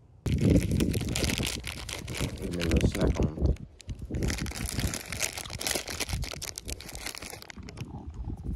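Plastic candy bag crinkling as it is handled close to the microphone, starting abruptly just after the start and crackling on and off throughout.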